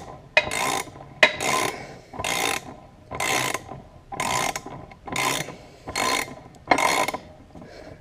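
Hand ratchet wrench worked back and forth in steady repeated strokes, about one a second, as a stubborn fastener comes out.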